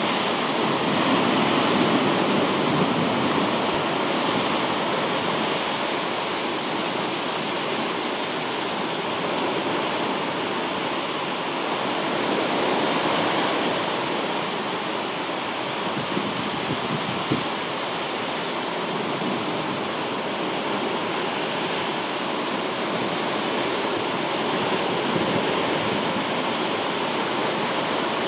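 Storm-driven surf breaking and churning against rocky sea cliffs, with seawater pouring back off the rock ledges: a steady rushing wash that slowly swells and eases as the sets come in.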